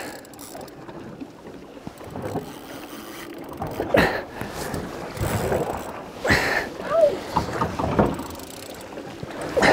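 Water slapping against the hull of a boat drifting at sea: a few sharp splashy slaps a couple of seconds apart over a steady wash, with some wind on the microphone.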